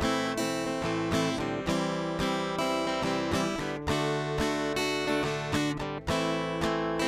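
Guitar chords strummed in a steady rhythm, about two to three strums a second, with no singing.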